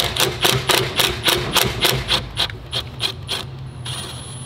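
Ratchet wrench turning a Torx T25 bolt out, clicking in an even rhythm of about three clicks a second. The clicking stops about three and a half seconds in, as the bolt comes free.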